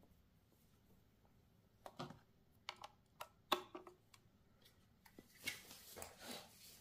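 Faint scattered clicks and light knocks from handling a Philips TAR4406 plastic clock radio and plugging in its power cable, followed by a soft rustle of handling near the end.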